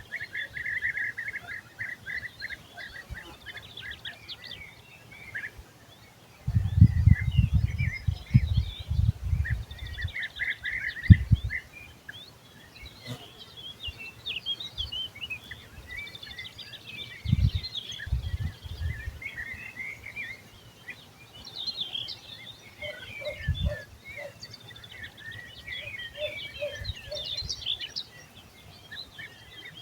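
Several wild birds singing and calling together in a continuous chorus of chirps and trills. Loud low rumbles strike the microphone, longest from about six to eleven seconds in, with shorter ones later.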